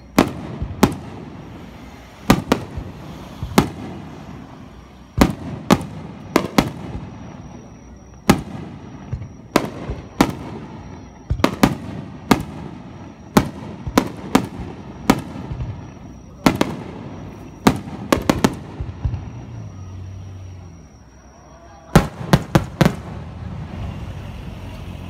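Aerial firework shells bursting overhead, a sharp boom every second or so, each with an echoing tail. Several come in quick clusters of three or four, the last cluster a few seconds before the end, after a short lull.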